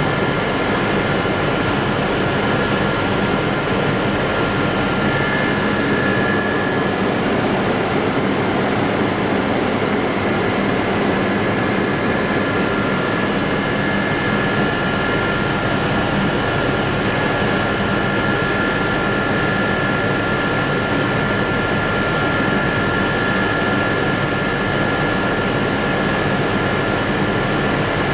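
Aérospatiale Gazelle helicopter in cruise flight, heard inside the cabin: the steady roar of its Turbomeca Astazou turboshaft and rotors, with a thin high whine running over it that grows a little stronger partway through.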